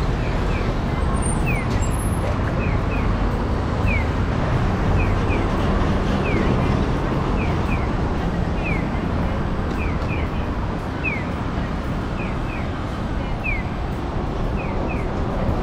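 Steady city street traffic noise, with the short electronic bird-like chirps of an audible pedestrian crossing signal repeating in a regular pattern over it.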